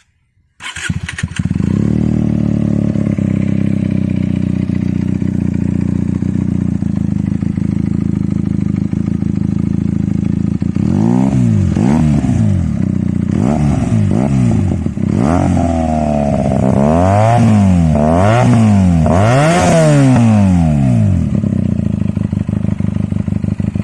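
Benelli TNT 300 parallel-twin motorcycle engine breathing through an aftermarket exhaust, started about half a second in and settling to a steady idle. From about halfway through, the throttle is blipped repeatedly, the revs rising and falling quickly about a dozen times, before the engine drops back to idle near the end.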